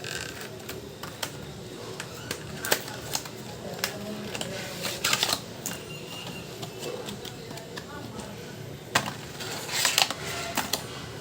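Scattered light clicks and taps of plastic and small metal parts being handled during a laptop upgrade, with two denser bursts of clicking and scraping about halfway through and near the end.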